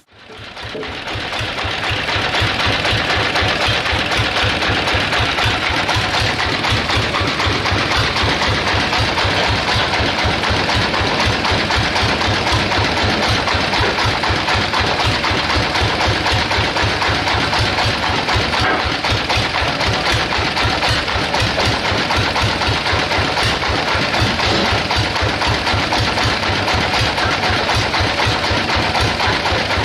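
Engine of a band sawmill running steadily with a rapid, even beat, fading in over the first couple of seconds. The saw is not cutting wood.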